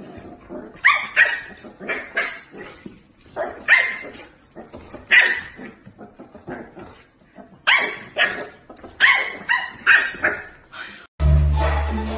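A dog barking in short, sharp calls, about a dozen in irregular bursts. About eleven seconds in, music with a steady bass line takes over.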